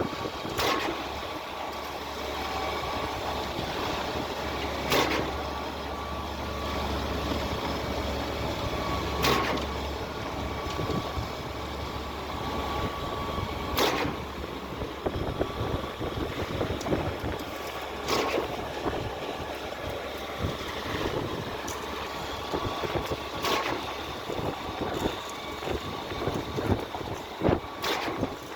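Truck-mounted concrete pump working on a slab pour: its engine runs steadily, with a sharp knock about every four and a half seconds as the pump changes stroke.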